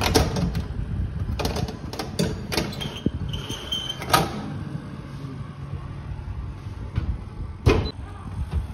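Metal baking tray clattering and scraping along the oven's rack runners, with a short high scrape before it knocks into place about four seconds in, then the oven door shutting with a knock near the end, over a steady low rumble.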